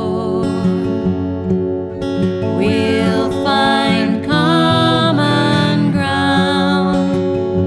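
Instrumental break of a ballad: strummed acoustic guitar chords, with a lead melody sliding between notes above them.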